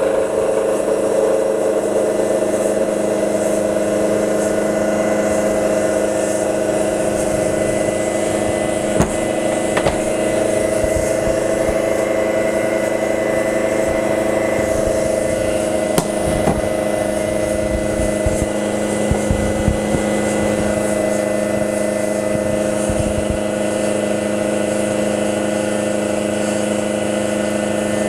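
CNC-converted Sieg X2 mini mill cutting a metal block with a 19 mm end mill under flood coolant. The spindle and cut make a steady hum with a few sharp ticks along the way.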